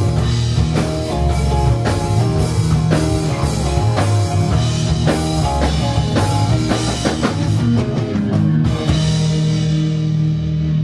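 Swamp-rock band playing an instrumental passage on electric guitar, bass guitar and drum kit. Near the end the drums drop out, leaving the guitars ringing on steady held notes.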